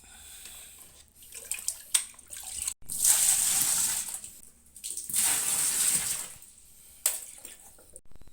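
Water rushing in two bursts of about a second each, with a few sharp clicks around them.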